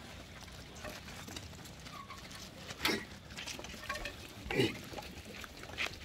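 A pen of Sojat goats milling and butting: a few short goat calls and scuffles, the loudest about three seconds in and again about four and a half seconds in.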